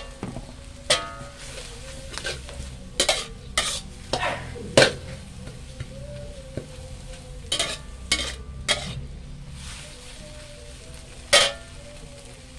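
Metal ladle scraping and knocking against a wok while stir-frying glass noodles and vegetables, over the steady sizzle of the frying food. The strokes come irregularly, about eight of them, the loudest about five seconds in.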